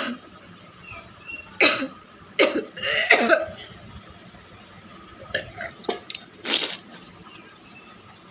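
A woman coughing and gagging in a string of separate forced coughs, one longer and rougher about three seconds in. She is deliberately retching to try to make herself vomit after drinking water.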